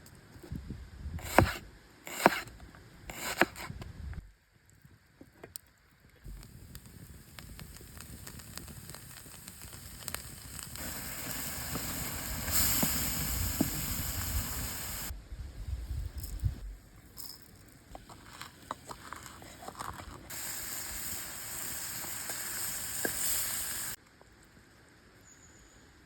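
Three sharp knocks in the first few seconds, then meat sautéing in a pan: a sizzling hiss with scattered crackles that grows louder, cuts off suddenly, and returns briefly before stopping abruptly again.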